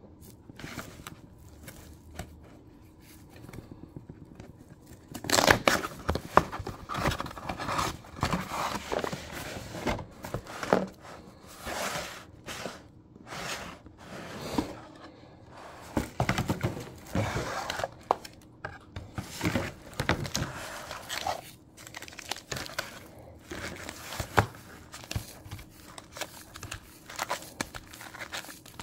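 Hands unboxing a card-game gift bundle: packaging crinkling and tearing, the cardboard box and lid knocking and sliding, and foil booster packs rustling. It starts about five seconds in and goes on in irregular bursts.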